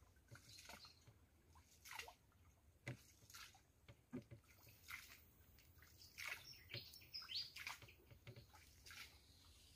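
Faint water sloshing and dripping in short, irregular strokes, with a few faint bird chirps about six to seven seconds in.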